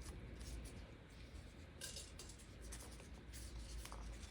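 Faint rustling and light scratching of hands handling ingredients, a few soft scrapes about two seconds in, over a low steady hum.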